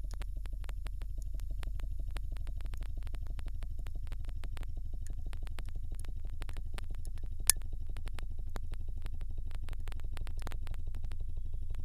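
Pump pressurising a test chamber, running steadily: a low drone with a fast, even pulsing and scattered light clicks, and one sharp click about seven and a half seconds in.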